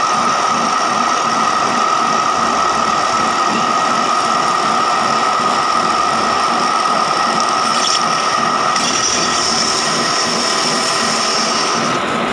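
A metal lathe takes a cut in a steel workpiece with a carbide insert tool, giving a steady cutting noise with a constant ringing tone. About nine seconds in, a higher whine comes up over it, and it fades just before the end.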